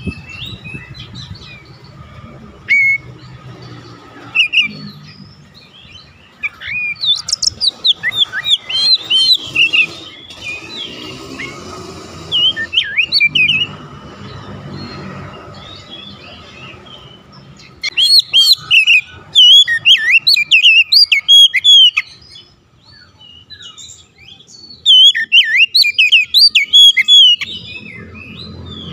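Oriental magpie-robin singing in several bursts of rapid, varied high whistles and chirps, the loudest bursts about two-thirds in and near the end. This is the worked-up full song, with mimicked phrases, that a rival magpie-robin's call sets off.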